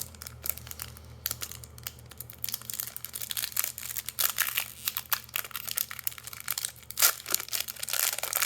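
A Magic: The Gathering foil booster pack wrapper crinkling and being torn open, a dense crackle that grows louder about halfway through, over a steady low hum.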